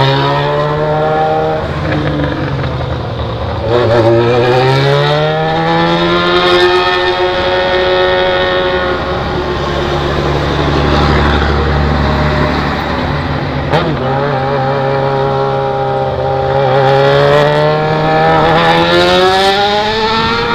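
Yamaha XJ6 inline-four motorcycle engine running through a new 4-into-1 straight-pipe exhaust with no muffler. The revs fall and rise several times as it rides, climbing steadily in the last few seconds.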